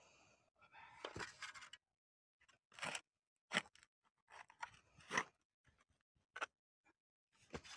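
Shovel blade digging into soil at the edge of a pool: a run of short crunching scrapes, about one a second, with one longer scrape about a second in.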